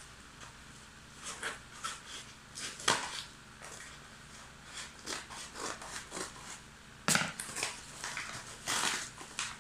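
Paper wrapping being torn and crinkled by hand, in irregular rustles with louder rips about three seconds in and again about seven and nine seconds in.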